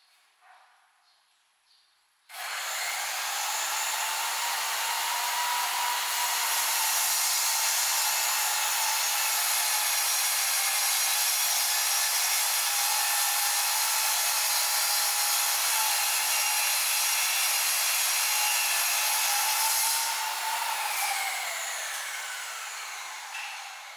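DeWalt sliding compound miter saw starting abruptly about two seconds in and running steadily while cutting wood. It then winds down over the last few seconds with a falling whine.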